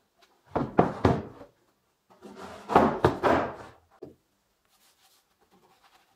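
Solid wooden planter boxes knocking and thudding against a wooden workbench as they are handled, in two clattering bursts about a second apart.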